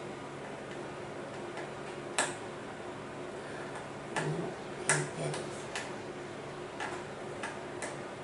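Small, irregular clicks and taps of the Operation game's metal tweezers against its plastic board as a piece is worked out of its slot, about eight in all, the sharpest about two seconds in and about five seconds in.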